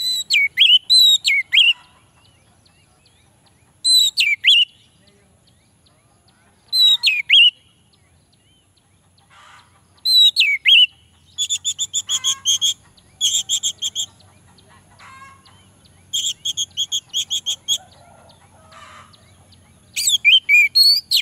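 Orange-headed thrush singing: short phrases of swooping whistled notes, with several runs of fast repeated notes about seven a second partway through.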